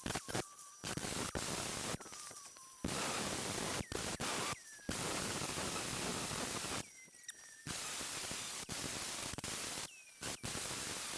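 A compressed-air tool hissing in repeated bursts of a second or two each, switched on and off about six times. Each burst starts with a short falling whistle.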